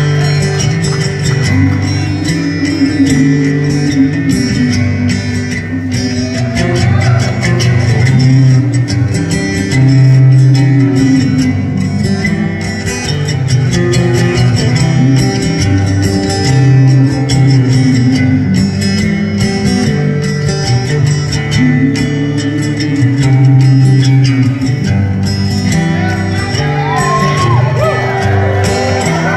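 Solo acoustic-electric guitar played live through a PA, strumming and picking a chord pattern that repeats about every six seconds, recorded on a phone from the audience in a theatre.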